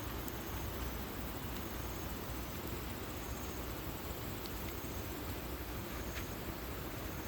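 Valley stream rushing steadily over rocks, with short high insect chirps, cricket-like, coming every second or so.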